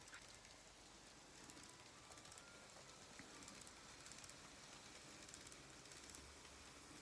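Near silence, with faint light clicking from a model train's wheels rolling along the track.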